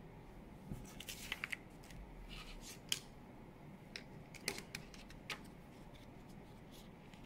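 A felt-and-calico plush toy and its plastic battery box handled on a hard worktop: scattered light rustles and clicks, the sharpest about three seconds in.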